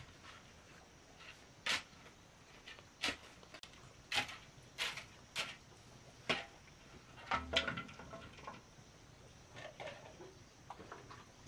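Hoe and steel shovel scraping and scooping into a pile of grey sand-and-cement mix: short scrapes about once a second, then a heavier dull thump about seven and a half seconds in, with fainter scrapes after.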